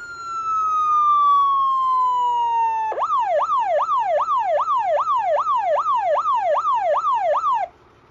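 Vetulani Vemar AS-100 electronic siren on a Jelcz fire engine sounding a slow falling tone. About three seconds in it switches to a fast yelp that rises and falls about two and a half times a second, then cuts off suddenly near the end, leaving the faint idle of the truck's engine.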